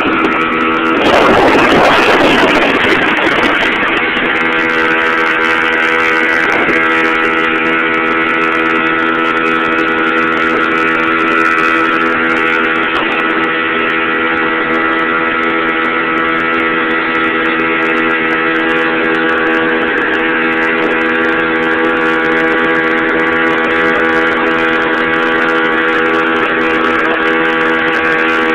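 1996 Bayliner 17-foot runabout's outboard motor running at a steady cruising speed under the rush of water off the hull and wake; the engine holds an even, unchanging note, running smoothly, which the owner calls running great. About a second in, a louder rush of splashing water lasts a couple of seconds.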